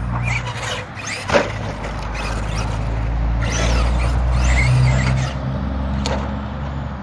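Traxxas Revo radio-controlled monster truck driving on a dirt track, its motor surging twice as it is driven hard, with a sharp knock about a second in.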